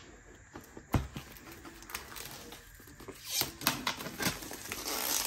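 Cardboard box and wrapping of a watercolour paint set handled during unboxing: a sharp click at the start and another about a second in, scattered small taps and scrapes, then louder rustling over the last two seconds.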